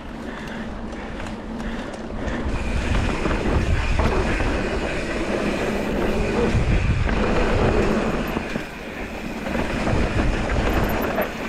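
Mountain bike riding fast down a dirt trail: tyres rumbling over packed dirt and the bike rattling over the bumps. It gets louder after about two seconds, dips briefly, and picks up again near the end.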